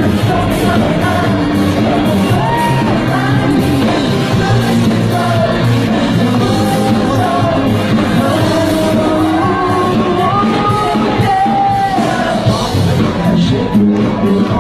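Live K-pop concert sound recorded from among the audience: loud amplified music with a steady beat and a sung vocal line, with fans yelling over it.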